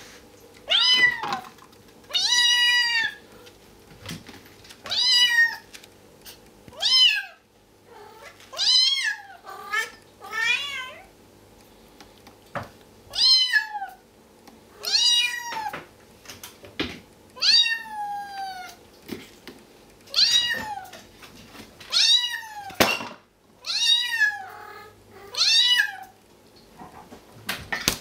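Bengal kitten meowing over and over, about fourteen high calls each rising then falling in pitch, one every second or two: hungry begging for food.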